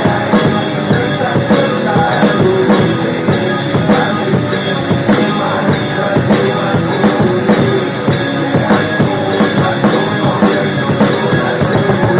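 Drum kit played along with a recorded rock song, in an instrumental passage without singing: a steady beat of bass drum and snare hits over the backing band.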